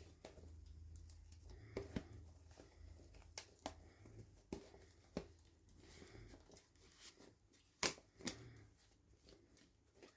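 Quiet hand-handling of toy packaging during an unboxing: scattered light clicks and soft rustling, with one sharper click about eight seconds in.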